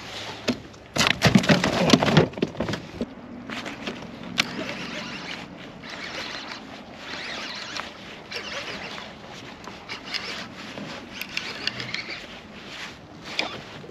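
Handling noise aboard a fishing kayak. About a second in there is a loud clattering scuffle lasting about a second, as the kept tautog is stowed. Lighter knocks, ticks and rustling of gear follow.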